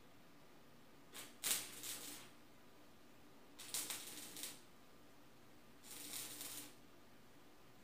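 Gasless flux-core MIG welder laying three short tack welds on sheet metal, each a crackling burst of under a second, the first the loudest.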